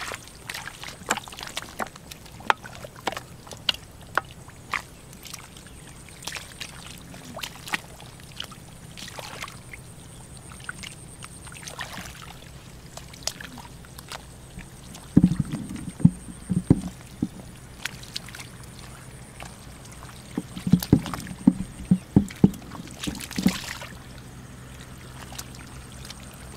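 Hands and bare feet sloshing and squelching in shallow muddy water, with scattered small splashes and clicks. Heavier sloshing comes in bursts about halfway through and again a little before the end.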